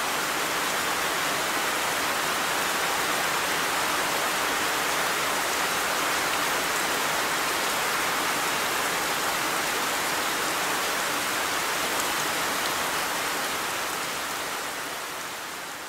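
Steady, dense rain shower falling in an even hiss, fading out over the last few seconds.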